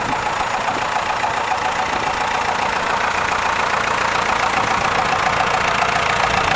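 David Brown 1412's turbocharged four-cylinder diesel engine idling steadily.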